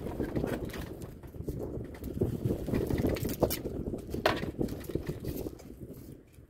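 Wind buffeting a phone's microphone, a rough rumble with a few short clicks mixed in.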